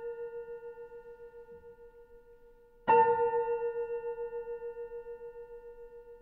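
A bell-like tone played from the keyboard in a piece for prepared piano and sampler, struck once about three seconds in and ringing out in a slow fade with a steady wavering pulse. The ringing tail of an earlier identical strike is still dying away at the start.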